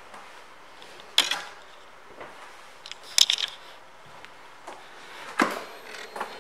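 Three sharp mechanical clacks, about two seconds apart, each with a brief rattle after it, over a low steady background hum.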